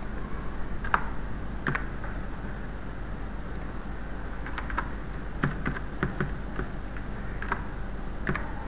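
Computer keyboard keys typed in scattered single taps and short runs, over a steady low hum.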